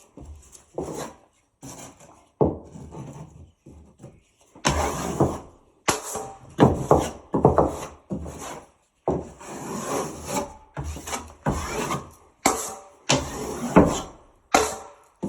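Metal drywall knife scraping setting-type joint compound (Durabond 90) over fiberglass tape on a drywall patch: a series of irregular rasping strokes, roughly one a second, with short pauses between them.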